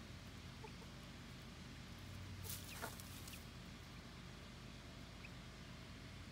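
Faint, soft clucking from a Buff Orpington hen foraging on the ground, with a brief scratchy rustle about halfway through.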